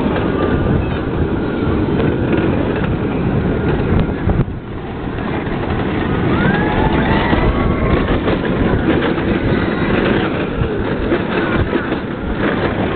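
Wind buffeting the microphone of a rider on a moving amusement park ride, a loud steady rushing noise that eases briefly about four and a half seconds in, with a few faint high rising sounds now and then.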